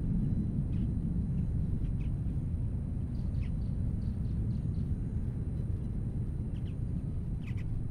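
Distant low rumble of a Boeing 747-400F's four Pratt & Whitney PW4000 engines as the climbing freighter recedes, slowly fading. Birds chirp briefly now and then over it.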